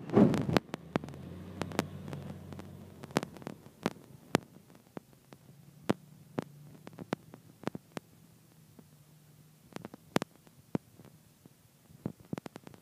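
A NABI 45C transit bus's engine drones steadily as it pulls away and fades into the distance, after a brief loud rush at the start. Scattered sharp clicks and taps sound close to the microphone throughout.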